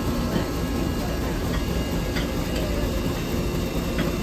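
A steady low rumble of running machinery, with a few faint clicks.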